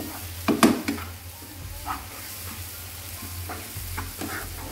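Coarse-ground chili, shallot and garlic paste sizzling in oil in a nonstick wok while a spatula stirs and scrapes through it in irregular strokes, the loudest about half a second in. The paste is being sautéed until fragrant.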